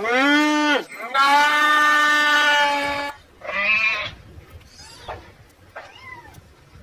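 Farm animal bleating: a short call, then a long drawn-out one of about two seconds, then a short one, and two fainter calls after.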